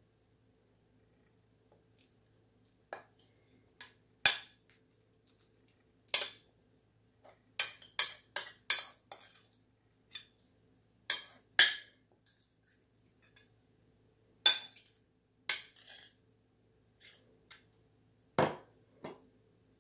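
A metal spoon clinking and scraping against a bowl as tuna salad is scooped out and spread onto bagel halves: irregular sharp clinks with quiet gaps between them.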